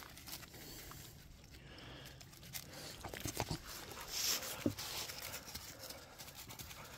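Faint rustling in dry leaf litter and scattered soft clicks as dogs move about and eat food scraps off the ground, a little louder about four seconds in.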